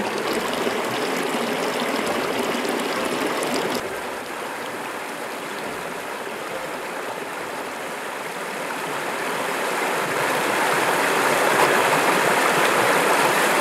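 Shallow river water running fast over rocks in riffles, the flow high after recent rain: a steady watery hiss that drops a little about four seconds in and grows louder from about ten seconds.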